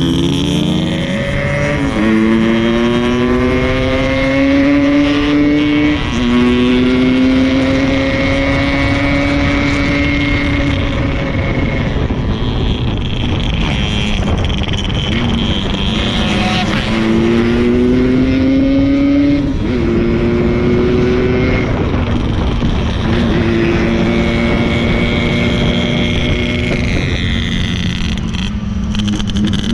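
Yamaha RX-King 135 cc two-stroke single-cylinder motorcycle engine under way. Its note climbs in pitch as it accelerates and steps down at each gear change, several times over, then holds fairly steady near the end.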